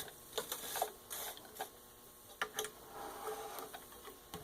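Scattered light clicks and taps from hands working the stopped Necchi 535FA sewing machine, at irregular intervals with a soft rustle about three seconds in.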